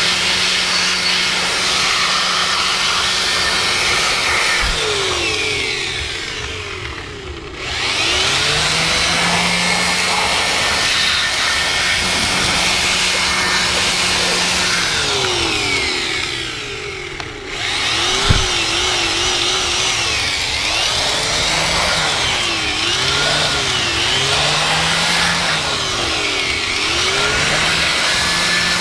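Hair dryer blowing, its motor whine wavering up and down in pitch. Twice it winds down and starts up again, with a sharp click as it comes back on the second time.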